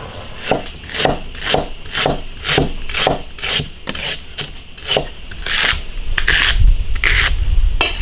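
Beef ribs being rubbed by hand in water with baking soda: rhythmic rubbing strokes, about two a second, growing longer and heavier near the end with a low rumble underneath.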